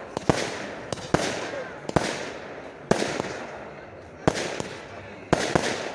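Aerial fireworks bursting overhead: about eight sharp bangs at irregular intervals, each trailing off.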